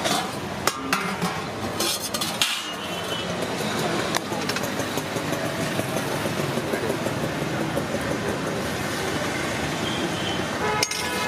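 Busy roadside street ambience with traffic noise and background voices. A few sharp clinks of a metal serving ladle against steel pots and plates come in the first couple of seconds.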